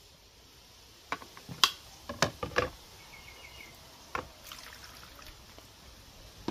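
Water poured from a plastic cup splashing onto seasonings in a plate as they are rinsed by hand. Several sharp splashes and clatters fall in the first three seconds, the loudest about one and a half seconds in, with one more about four seconds in.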